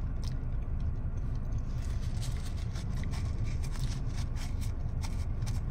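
Steady low hum of a car engine idling, heard from inside the cabin, with small wet clicks of chewing and finger-licking on top.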